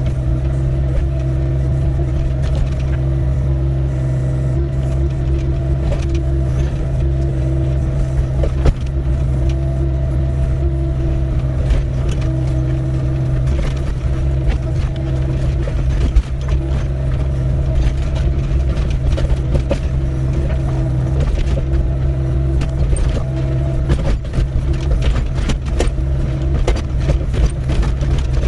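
Doosan 55W wheeled excavator's diesel engine running steadily under working load. Scattered knocks and scrapes cut across it, growing more frequent near the end, as the bucket digs through stony ground.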